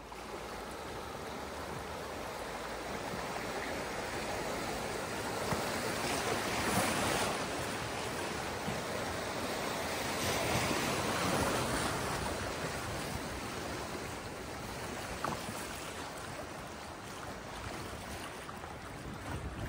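Rushing river water as a canoe runs through a small rapid, waves splashing along the hull, with wind buffeting the microphone. The rush swells about six seconds in and eases off toward the end.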